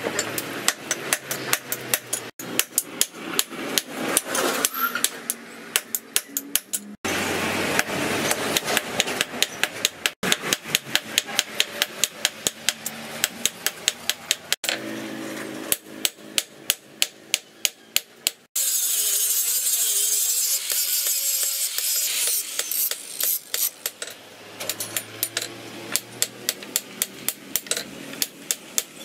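Rapid hand-hammer blows on a red-hot axe head on a steel anvil, about three to four ringing strikes a second, in several bursts. Past the middle the hammering gives way to a steady rasping hiss for a few seconds, then lighter, evenly spaced strokes as the clamped axe head is filed.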